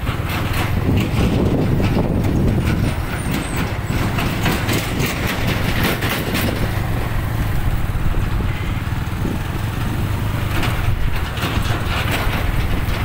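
A moving road vehicle: a steady engine hum with road and wind noise rushing past the microphone.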